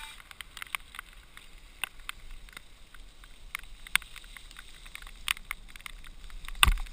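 Mountain bike rolling fast down a rough dirt trail, the frame and parts rattling with many irregular clicks and knocks over the bumps, and one hard thump near the end.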